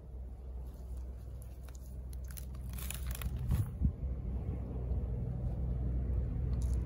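Young onion seedlings pulled up from garden soil by gloved hands: roots tearing loose with crunching and rustling, thickest about three seconds in, over a low steady rumble.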